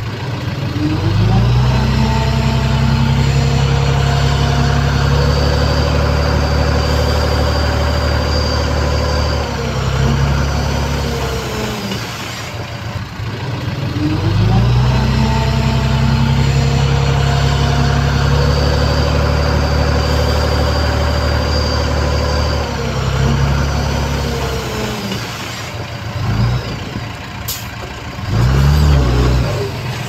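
Heavy diesel engine of a construction machine revving up and holding at high revs for about eight seconds, dropping back, then doing the same again, with a short rev near the end.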